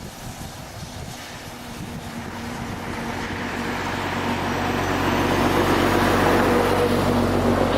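A narrow-gauge train approaching with a steady engine drone that grows louder, loudest about six seconds in.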